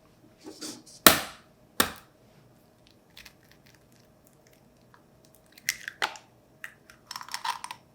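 Eggs being cracked against the edge of a cup and dropped in: two sharp knocks about one and two seconds in, then lighter taps and clicks, with a short clatter near the end.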